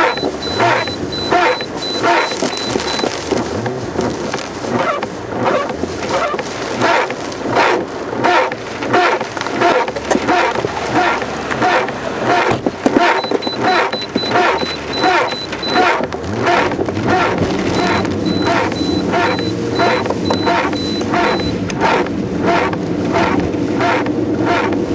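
Car's windshield wipers on a fast setting, swishing across the rain-covered glass about twice a second, over steady heavy-rain and engine and road noise.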